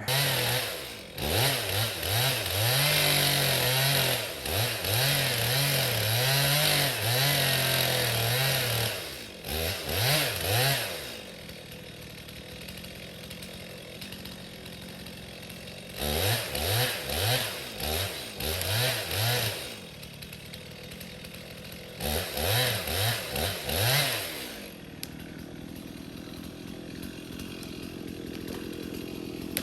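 Stihl two-stroke chainsaw cutting into a small maple trunk at full throttle for about ten seconds, dropping to idle, then two more shorter bursts of full-throttle cutting with idle between and after, as in the back cut that follows a felling notch.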